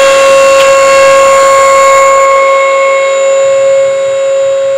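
Electric hydraulic pump of a two-post vehicle lift running with a loud, steady whine.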